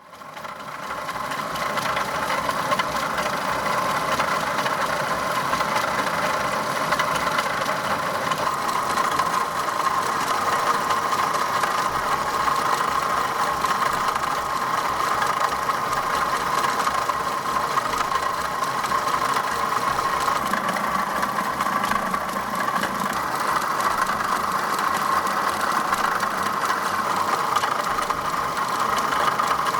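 Opel Omega B engine idling with a strong, steady noise from the water pump, the sign of a damaged water pump bearing.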